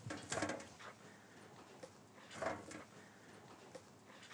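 Faint handling sounds of fried empanadas being set down on a slate serving board: a few soft taps and light scrapes.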